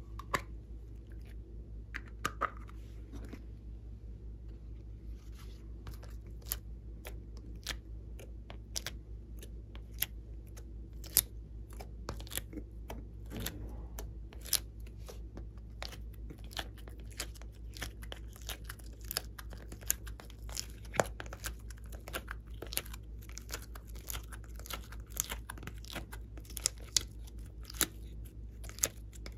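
Hands working soft modelling clay and plastic containers: a few clicks at first, then a run of small sharp clicks and crackles, denser in the second half, as clay is peeled out of a dimpled plastic tray and pressed onto slime. A steady low hum underneath.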